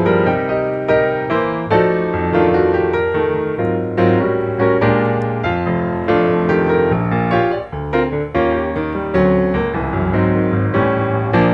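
Background piano music: a steady flow of struck notes and chords, each ringing and fading before the next.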